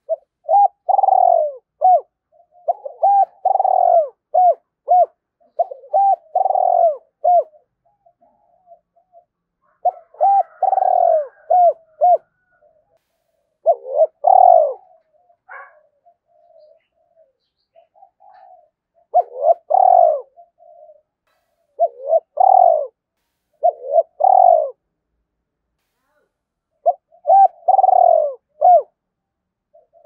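Spotted dove cooing close up: about nine bouts of quick, repeated coo notes with short pauses between them. This is the rapid challenge coo (gáy thúc) that a male gives at a rival dove.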